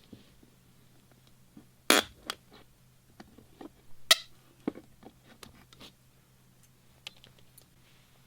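Metal hand tools clicking and clinking against each other and a hard surface. There are two sharp, louder clinks about two and four seconds in, with lighter ticks between.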